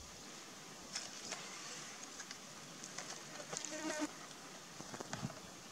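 Steady buzzing of insects, with scattered light knocks and rustles about a second in and again near the end as branches and a plastic laundry basket are handled.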